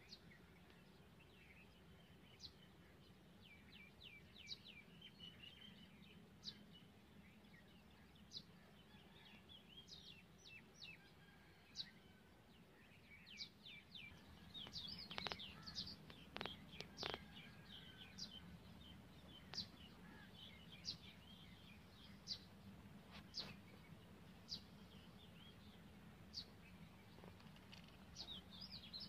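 Birds chirping faintly: short high notes that fall in pitch, repeated about once a second, with a few louder, sharper calls about halfway through, over a low steady hum.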